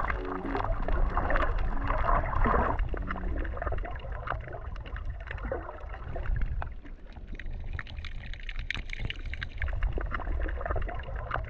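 Water gurgling and sloshing around a snorkeling camera, moving between underwater and the surface, with faint clicks. Soft background music with a steady bass runs underneath.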